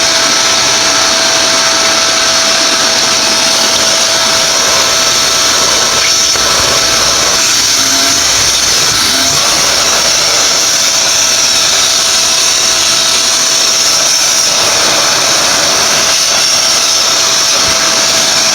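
Bennett Read vacuum cleaner running steadily: a constant motor whine over a loud rush of air.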